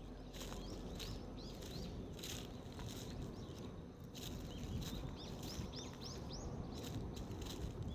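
Footsteps on a path at a steady walking pace, about two a second, with a small bird giving short rising chirps and a quick run of them a little after the middle, over a low steady rumble.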